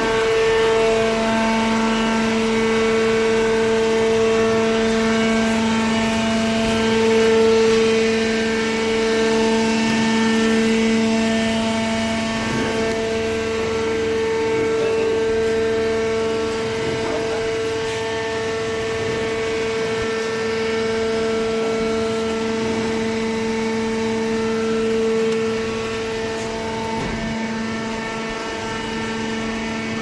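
Hydraulic cardboard baler's power unit running: the electric motor and hydraulic pump give a steady, even-pitched hum.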